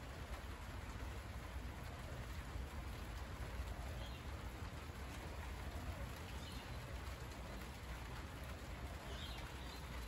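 Steady rain falling on broad monstera leaves, with a few faint bird calls over it.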